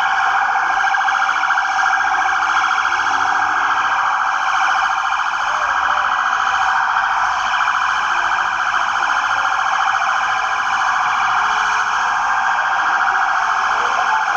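Police vehicle siren sounding continuously, a fast pulsing wail that holds steady at one pitch band without a break.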